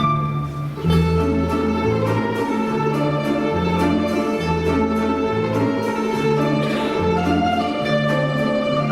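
Orchestra of Russian folk instruments playing, plucked and bowed-sounding strings over a bass line that moves in steps. The sound thins briefly just under a second in, then the full ensemble comes back in.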